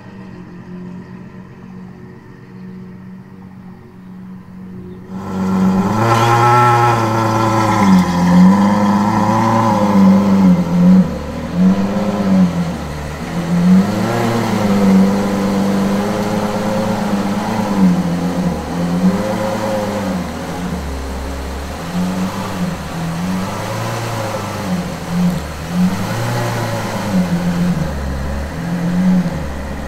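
Novitec-tuned Ferrari 812 Superfast's V12 running: quieter and steady at first, then much louder from about five seconds in, revved over and over in short rises and falls of pitch that drop back between them.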